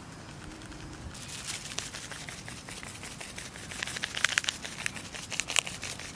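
A plastic spice packet of dry mango powder crinkling as it is squeezed and shaken over mashed potato. A run of quick crackles starts about a second in and is loudest past the middle.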